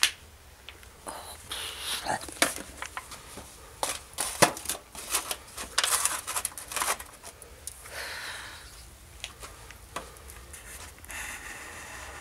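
Disposable aluminium foil grill trays crinkling and clattering as they are handled and set on a charcoal grill. Irregular clicks and knocks come thickest in the middle.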